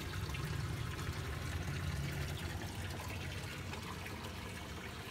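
Water trickling and splashing in ornamental fish tanks, steady throughout, over a steady low hum.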